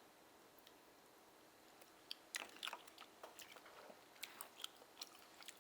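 Close-up mouth sounds of someone chewing a steamed oyster: a run of short wet clicks and smacks that starts about two seconds in, after a quiet start.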